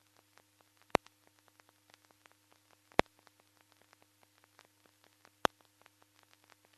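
Steady low electrical hum with faint crackle and three loud pops, about one, three and five and a half seconds in: playback noise on the transfer of silent film, with no sound from the scene itself.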